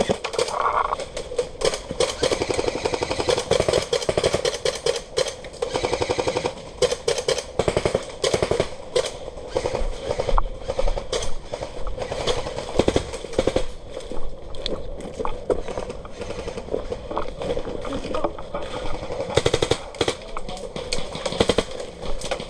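Airsoft electric guns firing in long rapid-fire bursts, a fast mechanical rattle of shots with the gearbox's buzz under it.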